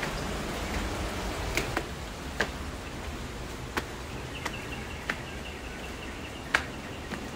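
Footsteps and handling of a handheld camera grip while climbing stone steps: scattered sharp clicks, irregularly spaced, over a steady outdoor hiss. A faint high steady tone sounds for a couple of seconds in the second half.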